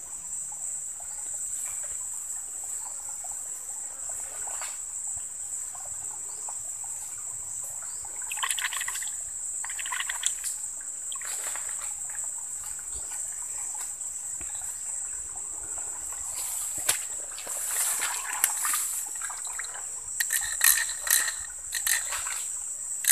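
Steady high-pitched drone of crickets, with scattered small water splashes and grass rustles as a fishing line is worked in a small water-filled hole in the mud.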